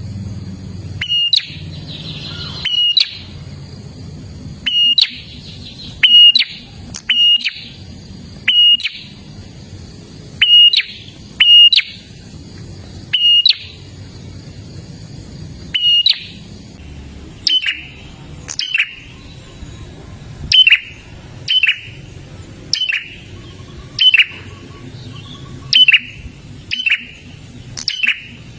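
Prinia (prenjak) calling in a long series of loud, sharp chirps, each dropping quickly in pitch, about one a second, often in quick pairs. A low steady hum runs underneath.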